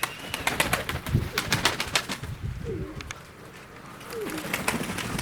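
Domestic pigeons cooing, two short low coos about two-thirds of the way through, among a scatter of sharp clicks and taps.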